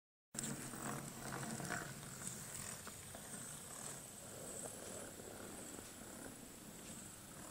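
O gauge model locomotive's small Canon EN22 electric motor and 38:1 gearbox purring steadily as it runs along the track, with a faint high whine and a few soft clicks. The sound drops out for a moment at the very start.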